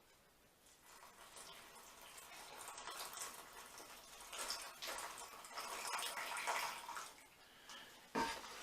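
Hot water being poured into a freeze-dried meal pouch, a faint pouring sound from about two and a half seconds in until about seven seconds. A short, louder noise follows near the end.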